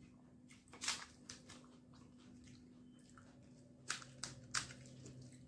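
Crisp pani puri shells crunching as they are cracked open and eaten: a handful of short, sharp crunches, the loudest clustered around four seconds in, over a faint steady hum.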